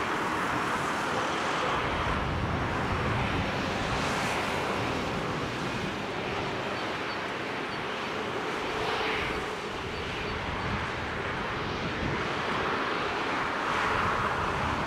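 Jet aircraft engines running steadily, an even, unbroken rushing noise with a faint steady hum in it.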